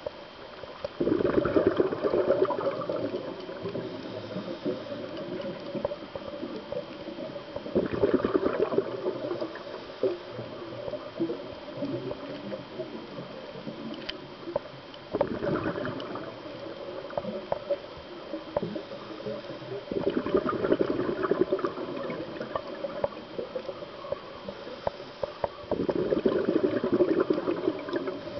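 A scuba diver's regulator breathing underwater: five bursts of exhaled bubbles, about six seconds apart, each gurgling and crackling for a couple of seconds, with a quieter hiss between breaths.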